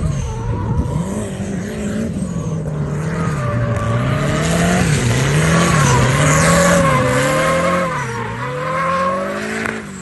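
Turbocharged Chevrolet Chevette engine revving up and down repeatedly as the car drifts, with tyre squeal. The sound grows loudest around the middle as the car slides past close by.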